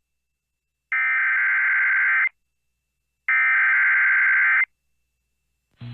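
Emergency Alert System SAME header on NOAA Weather Radio: two bursts of harsh warbling digital data tones, each about a second and a half long and a second apart, the last repeats of the coded header that opens a warning broadcast.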